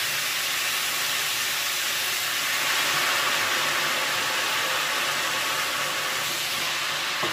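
Pork and carrots sizzling in a hot pot as soy sauce is poured in: a steady hiss.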